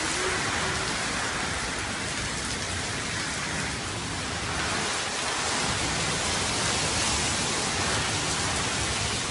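Heavy typhoon rain falling in a steady, unbroken hiss.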